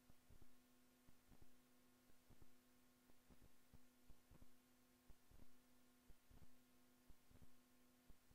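Near silence: a faint steady hum with soft paired ticks about once a second.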